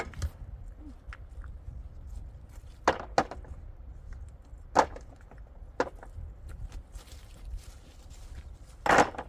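Irregular knocks on wood, spaced a second or more apart, with a longer, louder knock near the end.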